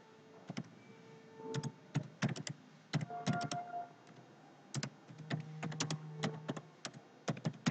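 Typing on a computer keyboard: irregular keystroke clicks coming in short clusters as a sentence is typed.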